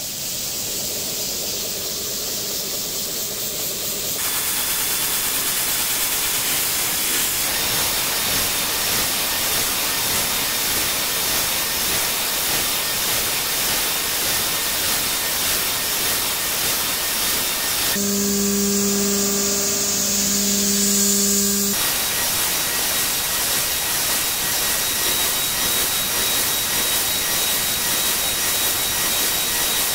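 CNC vertical milling machine's end mill cutting a circular pocket into a metal plate along a spiral toolpath, a steady hissing cutting noise that grows louder about four seconds in. About two-thirds of the way through, a steady low hum with an overtone joins for about four seconds.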